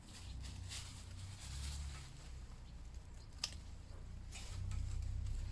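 Rustling and crackling of wisteria stems and leaves being handled and pulled, with a sharp click about three and a half seconds in, over a low rumble of wind on the microphone.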